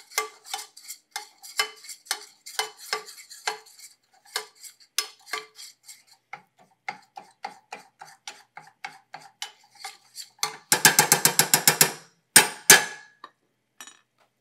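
A metal utensil stirring a flour-and-fat roux in a stainless steel saucepan, clinking against the pan a few times a second. Near the end comes a quick burst of fast strokes, then two sharp knocks on the pan.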